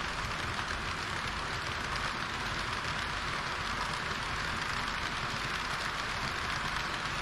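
HO-scale model train running along the layout track: a steady rushing, rattling noise of wheels on rails and motor that holds even throughout.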